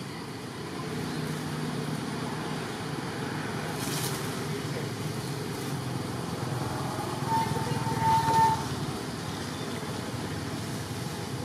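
Steady low outdoor background rumble, like distant road traffic, with a short held tone from about seven to eight and a half seconds in.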